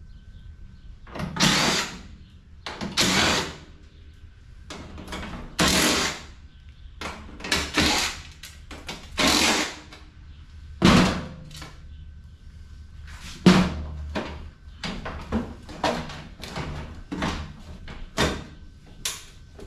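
Power drill-driver run in short bursts, over and over, backing screws out of a scrapped appliance while it is taken apart.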